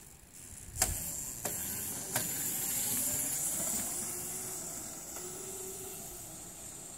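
Steady hissing noise with a few sharp clicks in the first couple of seconds. Under it is a faint hum from a small electric dirt bike riding off, fading over the second half.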